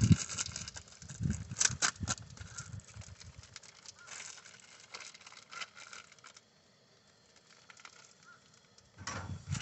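A plastic food package being handled and cut open with a knife: irregular crinkling, crackling and tearing.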